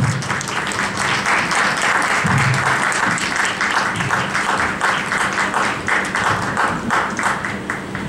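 Audience applauding: many hands clapping together in a dense, steady patter.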